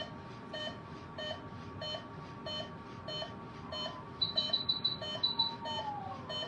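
Veterinary anaesthesia monitor beeping with the heartbeat of the anaesthetised patient, an even beep about every 0.6 s. About four seconds in, a quick run of higher-pitched beeps sounds over it.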